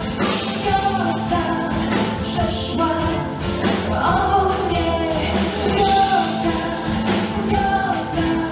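Polish pop song performed live, a woman singing over a full band backing.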